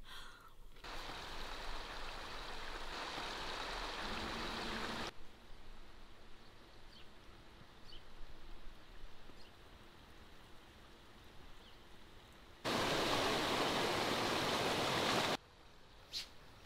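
Outdoor ambience in several edited stretches: a steady rushing noise that starts and stops abruptly at each cut, loudest for about three seconds near the end, with a few faint high chirps in the quieter middle.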